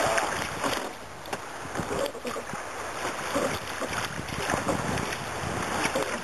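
Sea kayak moving through choppy sea: water slapping and splashing irregularly against the hull, with wind buffeting the microphone.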